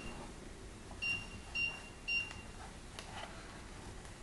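A lipolaser slimming machine's control panel beeping three times, short high electronic beeps about half a second apart, as its buttons are pressed to set the treatment timer. A faint click follows about three seconds in.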